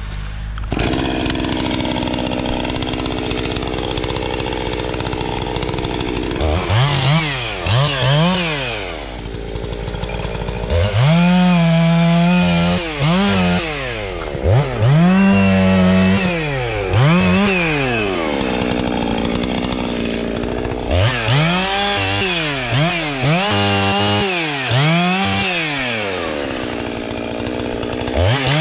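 Two-stroke chainsaw idling for about six seconds, then revved up and down over and over as it cuts the branches off a felled tree, its pitch rising and falling with each squeeze of the throttle.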